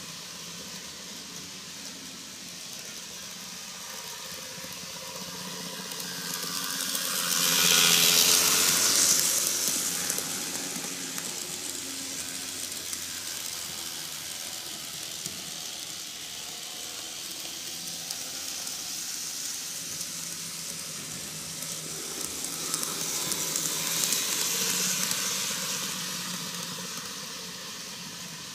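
N-gauge model train (Tomytec Tetsudō Collection Keihan 600 series) running on plastic track, a steady rushing hiss of wheels and motor that swells loudest twice, about 8 and 24 seconds in, as the cars pass close by.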